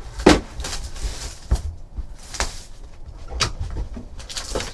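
Trading-card boxes and packs being handled and cut open with a box cutter: cardboard and plastic wrapping scraping and rustling, with about five sharp taps and knocks.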